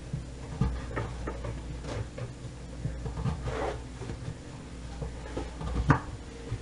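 Knife cutting vegetables on a cutting board: irregular taps and knocks with a short scrape partway through, the loudest knock near the end. A steady low hum runs underneath.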